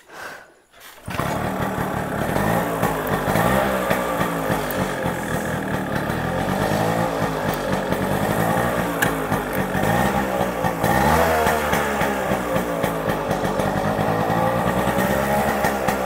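Yamaha RX 100's two-stroke single-cylinder engine running, coming in suddenly about a second in, its revs rising and falling several times. The engine has been serviced and is running right again.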